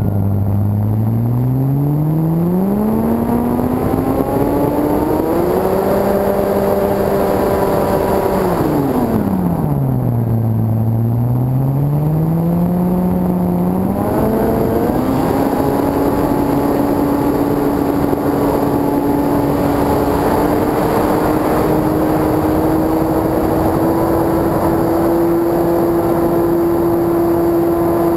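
Electric motor and propeller of an E-flite Carbon-Z Yak 54 RC plane whining as the throttle changes. The pitch drops right at the start, climbs over several seconds and holds, drops again about ten seconds in, climbs back, then stays steady, creeping slowly higher through the second half. A steady rush of wind runs over the onboard camera throughout.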